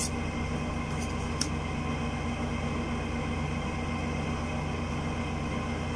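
Steady hum and hiss of a room air conditioner running, with two faint clicks about a second in.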